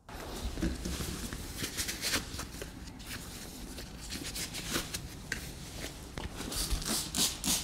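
Light handling and rustling noise, then, about a second before the end, a handheld trigger spray bottle begins spraying permethrin solution onto clothing: a fast run of short spray hisses.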